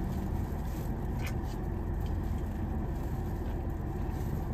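Steady low rumble of a stationary car heard from inside its cabin, with a faint click a little over a second in.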